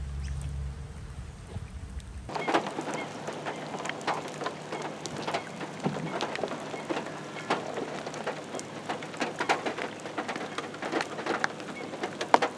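Rain falling on floodwater, with many separate drops ticking sharply close by over a steady hiss. For the first two seconds there is only a low rumble and faint hiss, then the rain sound comes in suddenly.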